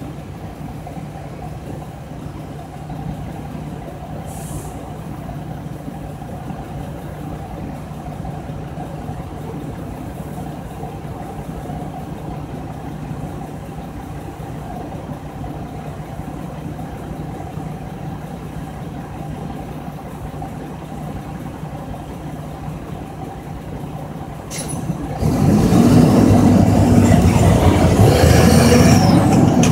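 Mack truck's diesel engine idling steadily while stopped. Near the end there is a brief hiss, and then the engine gets suddenly much louder as the truck pulls away and accelerates.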